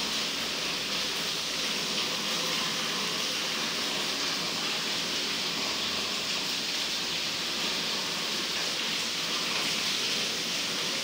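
Steady rain falling, an even hiss with no breaks or pauses.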